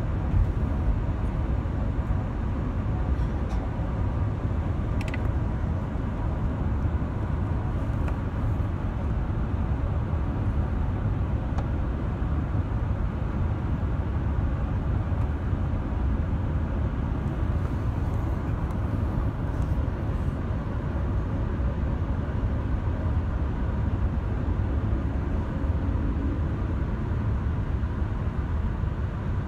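Steady low cabin rumble inside an Airbus A380 with GP7200 engines on final approach: airflow and engine noise at an even level, with a faint steady whine over the rumble and a small click about five seconds in.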